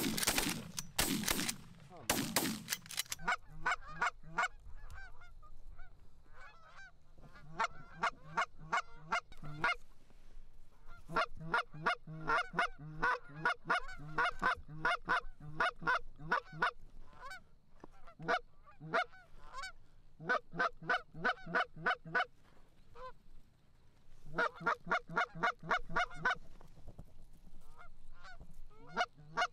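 A volley of shotgun shots in the first three seconds, then Canada geese honking in quick runs of calls with short pauses between the runs.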